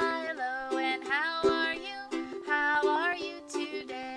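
Ukulele strummed in chords, with a woman singing along over it in short phrases.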